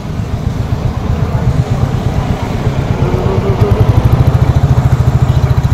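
Royal Enfield single-cylinder motorcycle engine running at low revs in slow traffic, with a fast, even beat. The beat grows louder and more distinct a few seconds in.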